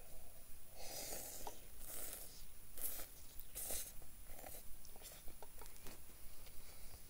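A man eating spaghetti from a metal camp mug with a hand-carved wooden fork: a string of about six short scraping and eating noises, each under half a second.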